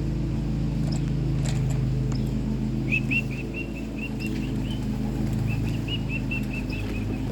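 Pigeons' wings flapping as the birds come in, with two runs of quick, high, repeated chirps over a steady low hum.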